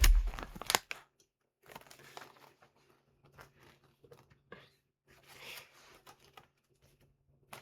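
Paper instruction sheets being handled and unfolded, rustling and crinkling in three short spells, after a heavy thump and a few clicks at the start.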